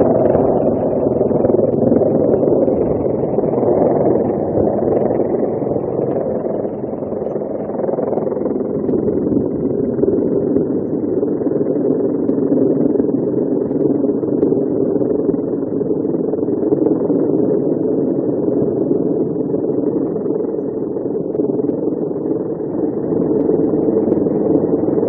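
Military helicopter hovering low overhead during a winch rescue: a steady, loud drone of rotor and turbine.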